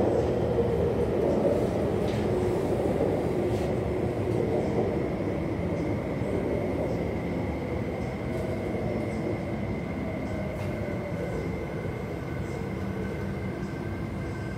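West Rail Line electric train heard from inside the car as it slows along a station platform. The wheel-and-motor rumble fades steadily while a thin, steady whine runs over it.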